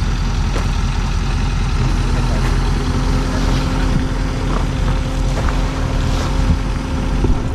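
A truck engine running steadily at idle, with a steady hum joining in about two seconds in.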